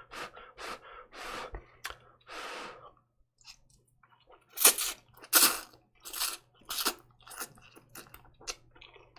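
A person eating hot, spicy instant kimchi ramen noodles: chewing and drawing in noodles, with a run of short, loud eating sounds about halfway through.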